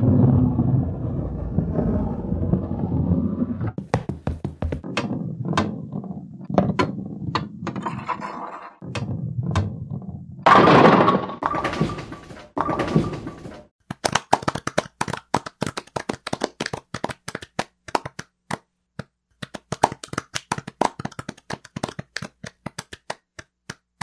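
Bowling sounds in sequence: a bowling ball rolling down a lane with a low rumble, then scattered knocks of pins. A second roll ends about ten and a half seconds in with a loud crash of ball into pins and pins clattering. Through the second half comes a long, irregular run of short, sharp wooden knocks.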